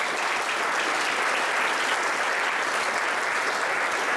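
Conference audience applauding, a steady dense clapping that starts just before and fades out about a second after.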